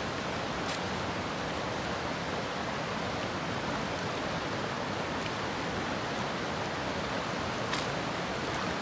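River water rushing steadily over a gravel riffle, with a faint click about a second in and another near the end.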